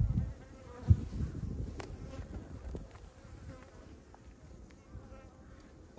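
Honeybees buzzing faintly around an opened hive, with a single knock about a second in as a wooden frame is handled.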